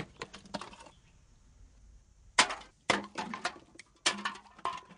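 Empty bottles and cans clattering and clinking as they are tossed together, in short clusters of knocks with a quieter pause of about a second and a half partway through.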